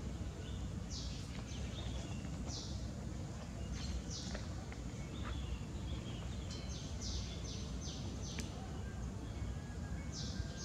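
Outdoor ambience: short, high, hissing buzzes, each about a third of a second, repeating irregularly, with a run of four close together about seven seconds in, over a steady low rumble.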